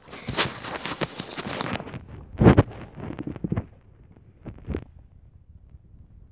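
Rustling handling noise with many small clicks, then a loud knock about two and a half seconds in and a few softer clicks and taps; quiet near the end.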